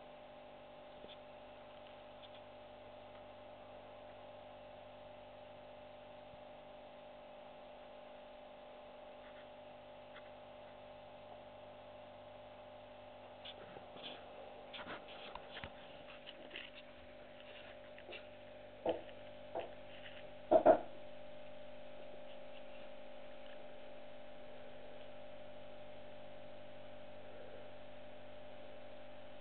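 A steady electrical hum with several fixed tones. About halfway in comes a run of small clicks and knocks from the camera being handled and moved, ending in two sharp, loud knocks a little before two-thirds of the way through. After the knocks the hum is slightly louder.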